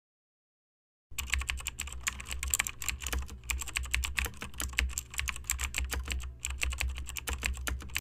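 Keyboard typing sound effect: a fast, continuous run of key clicks that starts about a second in and pauses briefly twice, over a low steady hum.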